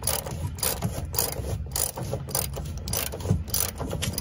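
Socket ratchet clicking in a steady run, about three clicks a second, as it turns a 15 mm fuel-tank strap bolt on an extension to back it out.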